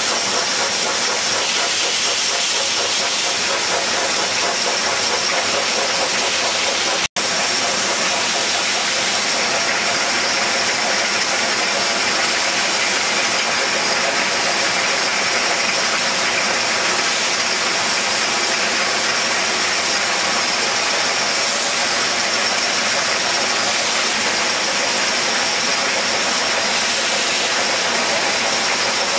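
Rotary glass-bottle soft-drink filling and capping line running at speed: a steady mechanical hiss with a constant high whine over it. The sound cuts out for an instant about seven seconds in.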